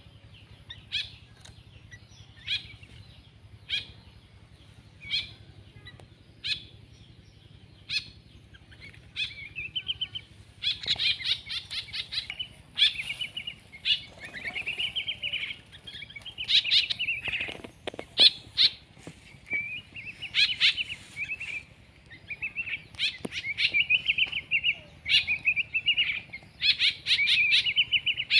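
Small birds calling: single sharp chirps about every second and a half, then from about ten seconds in a dense, rapid chattering of trills that keeps going.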